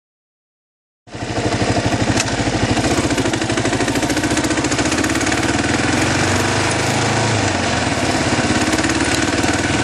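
Kawasaki KLR650's single-cylinder four-stroke engine running with a fast, steady thumping pulse, heard up close. It starts about a second in.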